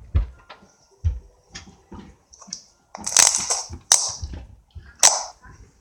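Slime being squished and pressed by hands, giving irregular sharp clicks and crackling pops as air pockets burst, with a few louder squelching bursts in the second half.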